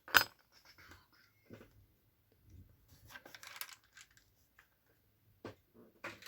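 Small metal parts and hand tools being handled on a workbench: a sharp clink just after the start, a short scratchy rasp around three seconds in, and a few light clicks near the end.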